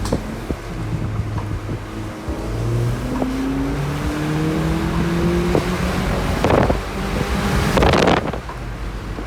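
VW Polo GTI's turbocharged 2.0 TSI four-cylinder running through its stock exhaust, its note rising steadily in pitch over several seconds as it revs up. Two short bursts of loud rushing noise follow, about six and a half and eight seconds in.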